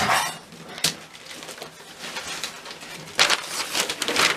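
Christmas wrapping paper being torn and crumpled as a gift is unwrapped, with a sharp crackle just under a second in and a dense run of tearing and crinkling from about three seconds in.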